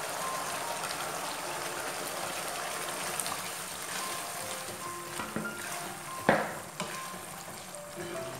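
Red chili sauce sizzling and bubbling in a nonstick wok as a spatula stirs and scrapes through it, with one sharp knock a little after six seconds in.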